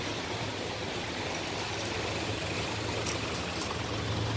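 A vehicle engine idling, a steady low hum that grows a little louder near the end, with a couple of faint clicks.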